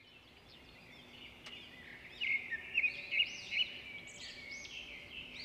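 Several wild birds singing and calling together, an overlapping chorus of short chirps and whistled notes, with a run of louder notes a couple of seconds in.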